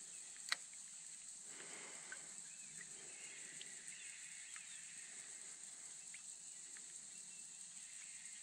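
Faint bush ambience: a steady high drone of insects with scattered distant bird calls, and a single sharp click about half a second in.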